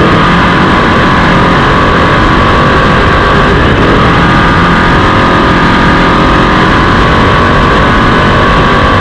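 Off-road race vehicle's engine running hard and steady at speed, very loud, with a high whine that drifts slowly in pitch.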